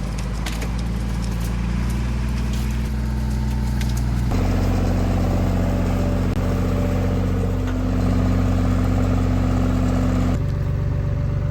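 Tractor engine running steadily, its note changing about four seconds in and again near the end, with a few light clicks in the first few seconds.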